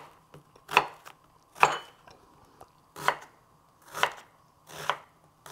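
Chef's knife dicing an onion on a wooden cutting board: separate chops, about one a second, each a short knock of the blade through the onion onto the wood.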